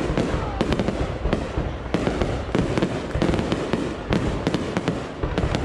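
Fireworks display going off continuously: a dense rumble of bursts with sharp bangs and rapid crackling clusters over it.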